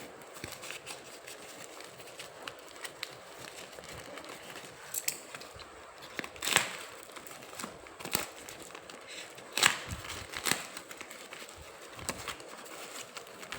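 Parcel packaging being opened by hand: crinkling, rustling and tearing, with scattered small clicks and a few louder rustles in the second half.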